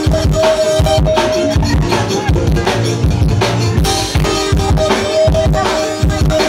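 Live zydeco band playing: the drum kit keeps a steady beat of kick and snare under bass guitar, with sustained melody notes held over it.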